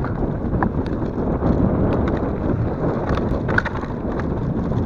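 Mountain bike riding fast down a dirt singletrack: steady rumble of the tyres on the dirt and wind on the microphone, with the bike rattling and clicking over bumps and a couple of brief squeaks.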